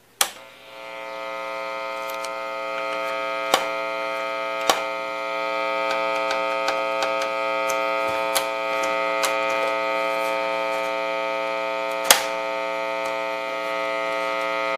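Philips 470 cassette sound system switched on with a sharp click of its power selector, then a steady buzzing mains hum from the set that builds up over about a second and holds. Several sharp clicks from its controls sound over the hum, the loudest about twelve seconds in.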